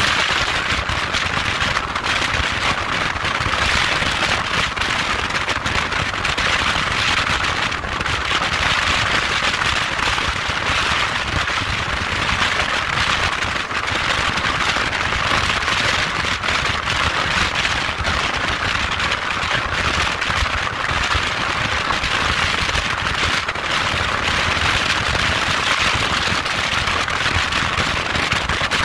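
Steady wind rush buffeting the microphone of a motorcycle at motorway speed, with a crackling texture, over a low rumble of engine and tyres on the road.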